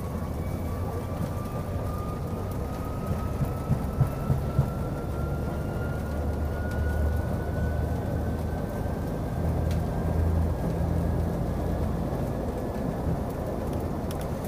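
Airliner takeoff roll heard from inside the cabin: a heavy low rumble from the wheels on the runway under an engine whine that rises slowly in pitch as the aircraft accelerates. A few quick thumps come about three to four seconds in.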